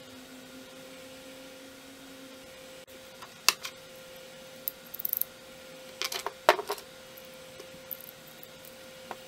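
Hand-plane parts clinking as they are handled: a scattered run of sharp metallic clicks and clinks beginning about three seconds in, the loudest about three and a half and six and a half seconds in, over a faint steady hum.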